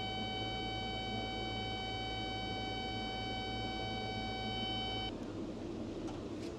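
A continuous electronic warning tone over a steady low machine hum, both cutting off together about five seconds in.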